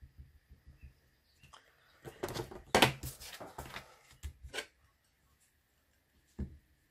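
Foam ink dauber patting ink onto a clear rubber stamp in quick soft taps, then paper and the clear stamp being handled with rustling and clicks, and one soft thump near the end as the stamp is pressed onto the card.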